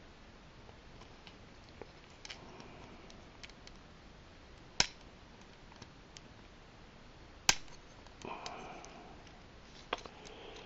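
Small plastic clicks and taps from hands working a plastic toy X-Wing model, with two sharp, louder clicks, about five seconds in and again about two and a half seconds later.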